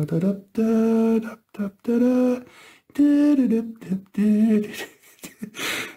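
A man humming a slow tune: a series of held notes, each about half a second long, with short breaks between them. There is a brief breathy hiss near the end.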